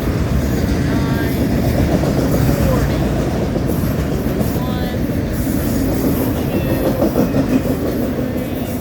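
Autorack cars of a BNSF freight train rolling past close by: a steady, loud rumble of steel wheels on the rails.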